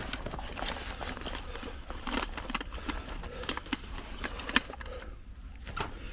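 Scattered light clicks and taps, a sharper one about four and a half seconds in, over a steady low rumble.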